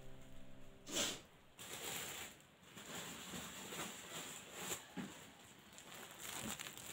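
Faint rustling of clothes in clear plastic laundry bags being handled and moved, with a few soft knocks, the sharpest about a second in.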